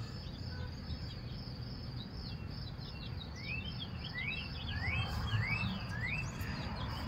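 Evening outdoor ambience: insects keep up a steady high trill while a bird gives a quick series of short rising chirps in the middle, over a low rumble.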